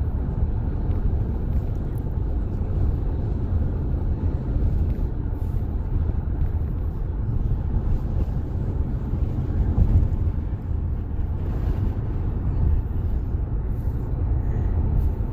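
Steady low road and engine rumble of a car driving along, heard from inside the cabin.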